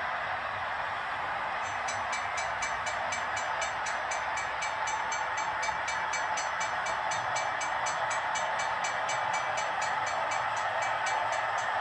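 Model train of diesel cab-unit locomotives pulling boxcars running along the layout track: a steady whirring rumble of motors and wheels on rail, with a rapid, even ticking joining about two seconds in.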